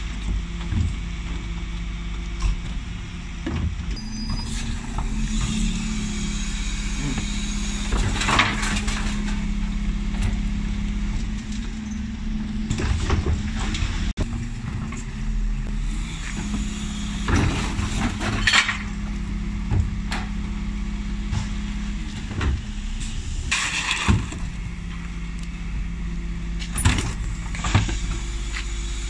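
Dennis Elite 6 bin lorry running, its engine and bin-lift hydraulics making a steady hum that steps up and down in pitch as the Terberg OmniDEL lift works. About six loud clattering bangs break the hum as black wheelie bins are tipped and knocked on the lift and waste drops into the hopper.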